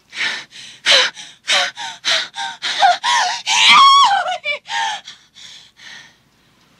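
A woman's exaggerated fake orgasm: rapid gasping breaths and moans building to a loud, high, quavering cry about four seconds in, then fading into softer gasps.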